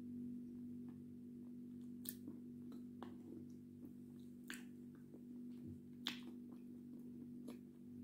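Faint wet mouth clicks and smacks from a mouthful of edible clay being chewed and worked with the lips closed, a few sharper ones about two, four and a half and six seconds in. A steady low electrical hum runs under it.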